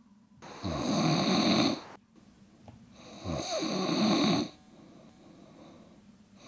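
A person snoring heavily: two long snores about three seconds apart, each opening with a falling low pitch, and a third starting just at the end.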